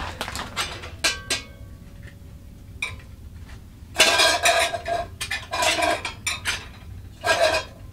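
Titanium percolator's lid and pot clinking and clattering as they are handled. A single ringing metal clink comes about a second in, then several bursts of rattling metal-on-metal clatter from about four seconds in.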